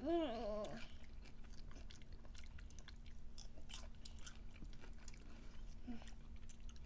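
Close-up chewing and crunching of a mouthful of popcorn, scattered small crackles and clicks throughout. A short hummed "mmm" comes at the very start.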